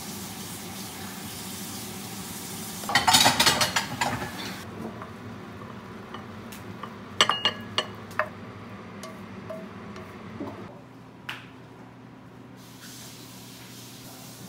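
Okara stir-fry sizzling in a frying pan while wooden chopsticks stir and scrape it, loudest about three to four seconds in. Around seven to eight seconds in come a few sharp clinks as the food is scraped from the pan into a ceramic bowl, over a steady low hum.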